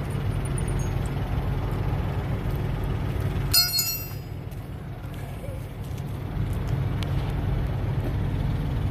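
Steady low rumble of an idling diesel truck engine, with one sharp metallic clink of a tire chain about three and a half seconds in.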